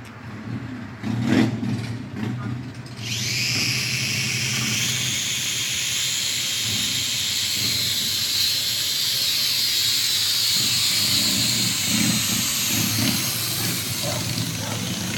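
Small toy quadcopter's electric motors and propellers spinning up about three seconds in and running with a steady high-pitched whir as it lifts off. A short bump comes first, about a second and a half in.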